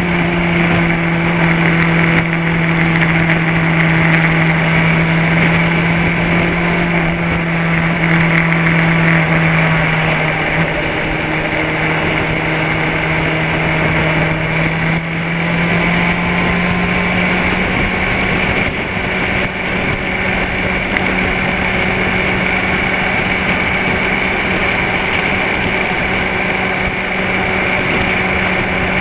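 Vehicle engine running at a steady speed, its pitch dipping slightly about ten seconds in and rising a little again past the halfway point.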